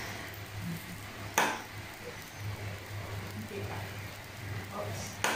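Chicken wing pieces frying in oil in a small pan, a light steady sizzle, with two sharp clicks: one about a second and a half in, one near the end.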